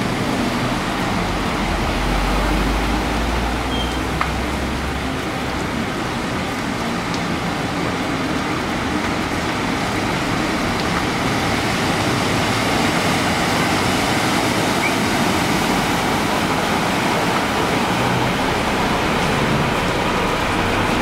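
Steady hiss of rain and running floodwater, with vehicles, among them a bus, driving through the flooded street and splashing. A deep rumble from about two to five seconds in.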